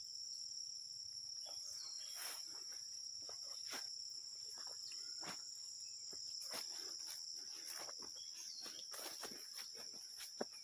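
A steady, high-pitched chorus of insects, with soft irregular crunches of footsteps on a dirt path every second or so.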